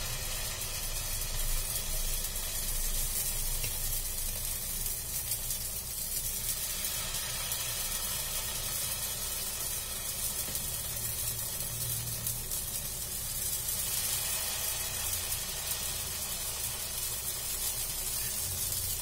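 Small rounds of uttapam batter sizzling steadily in an oiled frying pan as more batter is ladled on.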